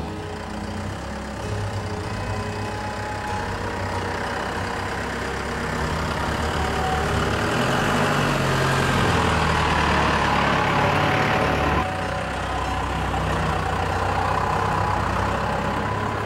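Cummins 4BT four-cylinder turbo diesel in a Ford F-150 pickup running as the truck drives along a dirt trail. The engine note rises and grows louder as it comes closer, then drops suddenly about three-quarters of the way through.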